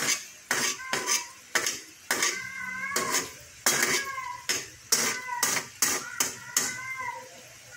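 Spatula scraping and tapping against a steel wok in quick, irregular strokes, about two a second, while egg, okra and tomato are pushed together in the pan for an omelette.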